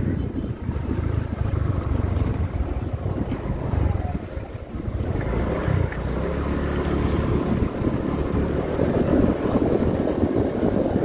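Small motor scooter's engine running steadily while riding along a rough dirt road, with wind rushing over the microphone.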